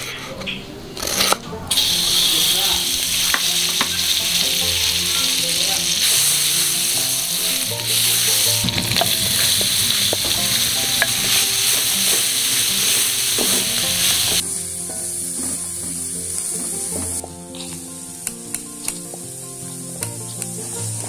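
A few knife strokes on a wooden chopping board, then chopped onion sizzling in melted butter in a hot pan. The sizzle starts suddenly just under two seconds in and eases to a quieter frying hiss about two-thirds of the way through.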